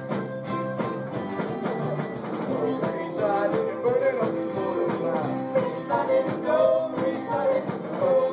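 Upbeat rock-and-roll music with a steady drum beat, between sung lines.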